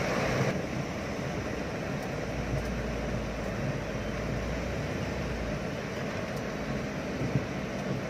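Steady noise heard from inside a car's cabin in heavy rain, the rain on the car and the surrounding traffic blending into an even hiss. A single short knock sounds near the end.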